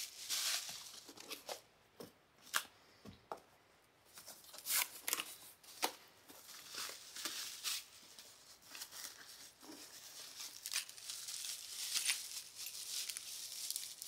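Bubble wrap and plastic packaging bags being handled, crumpled and pulled open: irregular crinkling with sharp crackles, quieter for a couple of seconds after the start and denser near the end.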